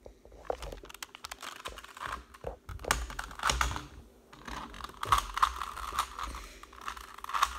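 Rubik's cube being turned by hand: quick, irregular plastic clicks and clacks as the layers are twisted.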